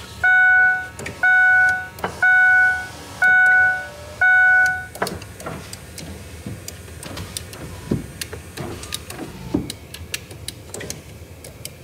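A Ford F150's dashboard warning chime dinging five times, about once a second, as the truck is switched on with the driver's door open, then stopping; scattered light clicks and knocks follow.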